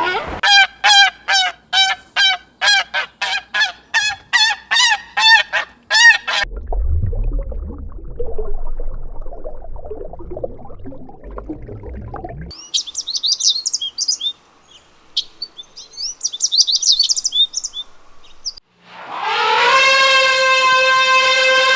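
A string of different farm animal calls: first a rapid run of about fifteen short, loud calls, roughly two a second, then a few seconds of low rumbling noise, then high chirping, and near the end one long drawn-out call held at a steady pitch.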